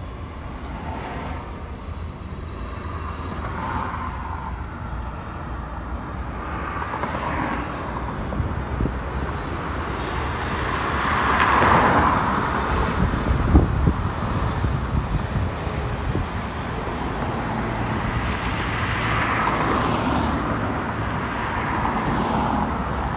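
Busy road traffic: several vehicles pass one after another, each swelling and fading, over a steady low rumble. The loudest pass comes about halfway through, followed by a short thump.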